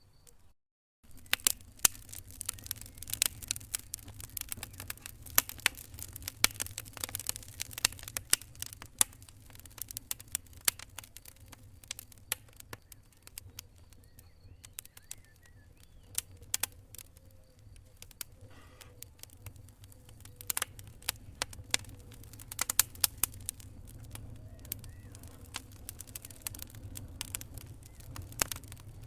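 Wood fire in a fireplace crackling, with many irregular sharp pops and snaps over a steady low rumble of the flames. The sound cuts out briefly near the start.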